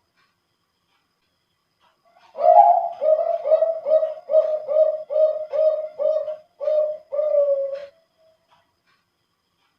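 Male Bangkok-line zebra dove (perkutut) singing a song phrase: starting about two seconds in, a run of about eleven short coos at roughly two a second, ending on longer drawn-out notes. A thick, full contest-class voice.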